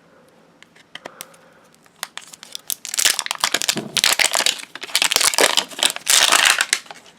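Plastic toy packaging being handled, then crinkled and torn open: a few light clicks at first, then about four seconds of loud, dense crackling.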